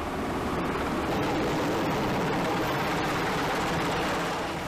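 Fire trucks' engines running steadily, a constant even noise that eases slightly near the end.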